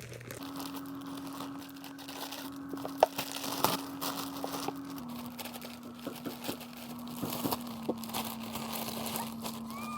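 Packaging crinkling and rustling in irregular crackles as a toy is unboxed, with a sharp click about three seconds in, over a steady low hum.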